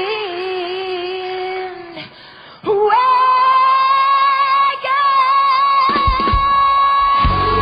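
A woman singing a pop-country song into a microphone: a held note that fades, a brief lull, then one long high note held for about five seconds with almost no backing. Near the end the band's low end comes back in under the note.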